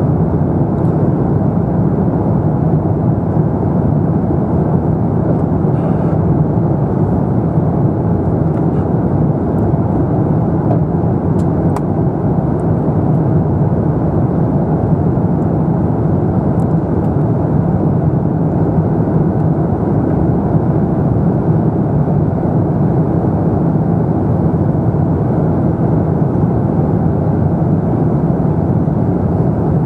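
Steady rushing cabin noise of an Airbus A350-900 in flight, the Rolls-Royce Trent XWB engines and the airflow heard from inside the cabin. The noise is deep, even and unchanging throughout.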